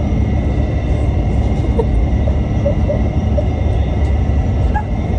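Loud dance music with heavy bass, coming across mostly as a steady low rumble.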